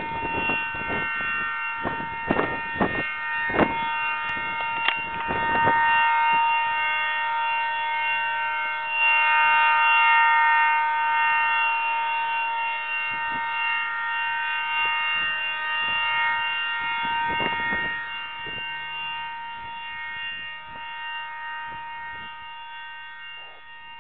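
Quarry blast warning siren sounding one long, steady tone before a shot is fired. A few knocks in the first several seconds, and the tone grows fainter over the last few seconds.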